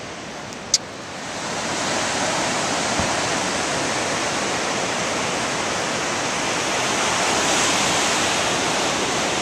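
Ocean surf breaking over a rocky shore: a steady rush of white water that swells in about a second in, just after a single sharp click.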